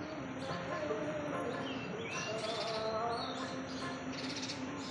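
Small birds chirping and twittering, a scatter of short high chirps with a few rising notes.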